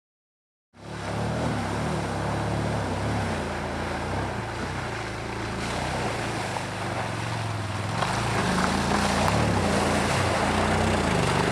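A vehicle engine running steadily with a low, wavering drone, mixed with heavy wind noise rushing over the microphone. It comes in abruptly about a second in and grows a little louder in the second half.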